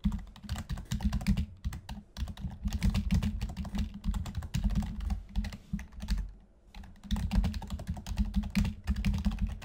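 Rapid typing on a computer keyboard, a dense run of keystrokes with a brief pause a little past the middle.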